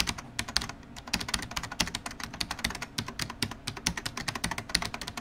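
Rapid computer keyboard typing: irregular keystroke clicks, about ten a second, as a sound effect for typed-on title text.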